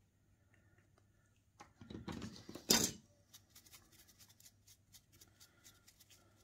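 Rustling and handling about two seconds in, with one louder knock. Then comes a run of quick, light scratching strokes as a small brush or tool is worked over a carved tooth model.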